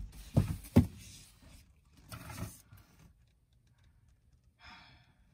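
Two dull knocks about half a second apart, then a brief faint rustle and near quiet.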